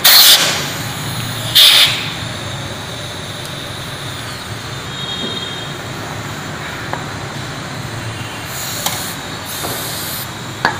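Short loud hissing bursts of compressed air, twice in the first two seconds and twice more near the end, over a steady low workshop hum.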